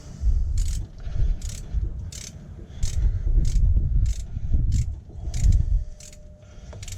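A 10mm socket ratchet being worked back and forth to tighten bolts and nuts on the engine. Its pawl clicks in short runs, about one and a half strokes a second, over the knocking and handling noise of the tool in a tight spot.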